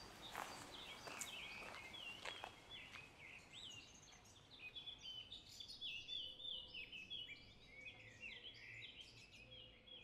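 Faint birds chirping: many short high notes overlapping, with a few clicks in the first couple of seconds.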